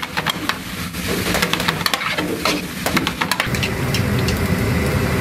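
Sliced onion, carrot and wood ear mushroom stir-frying in a wok: sizzling with the rapid scrape and clatter of a spatula against the pan. About three and a half seconds in it gives way to a steady low rumble as noodles in a strainer are blanched in a pot of boiling water.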